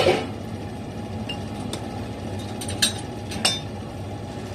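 A few short clinks and knocks of cookware and kitchen utensils being handled, over a steady low hum.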